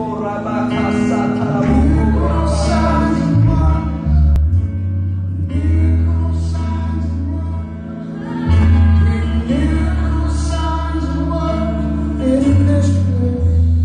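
Live band and singers performing over a hall's sound system, with deep sustained bass notes under sung melody lines.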